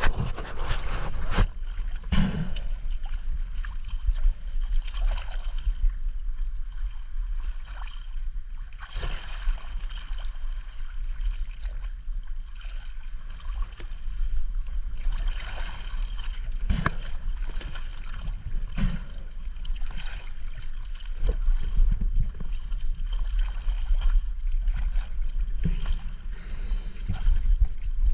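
Choppy lake water sloshing and splashing against a mask-mounted action camera held at the surface, over a steady low rumble, with irregular sharper splashes.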